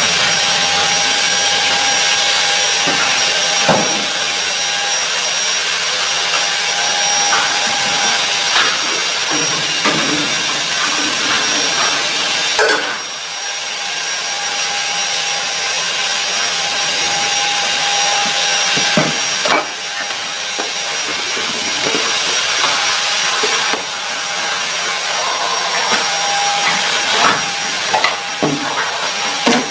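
Vacuum cleaner running steadily with a high whine, with scattered knocks and a few brief dips as it is moved over the floor.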